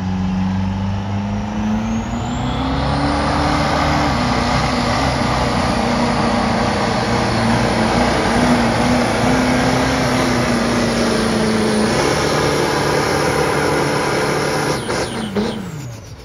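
Diesel pickup truck under full throttle, pulling a weight-transfer sled: a loud, steady engine note that climbs in the first few seconds and holds, with a high whistle above it. About fifteen seconds in, the revs fall away and the engine sound drops off sharply as the truck comes to a stop.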